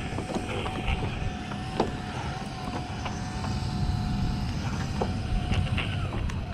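Jet ski engine running steadily on the water, its whine dipping in pitch near the end, over wind noise, with a couple of sharp knocks.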